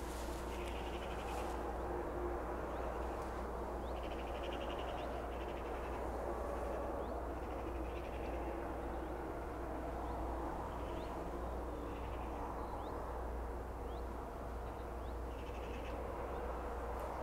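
Outdoor ambience with a steady low rumble, over which short rattling animal calls recur every few seconds, with a few faint chirps between them.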